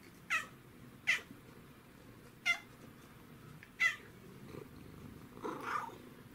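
A cat gives four short, high chirps a second or so apart, then a softer, longer call near the end. It is chirping at an insect up on the ceiling, the way cats do at prey they can't reach.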